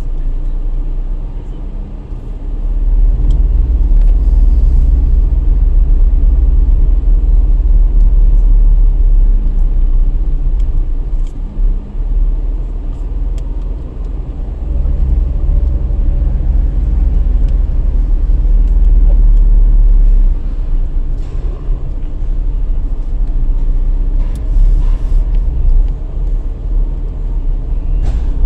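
A car driving at low speed: a steady, deep rumble of engine and tyres heard from inside the vehicle, dipping briefly about halfway through.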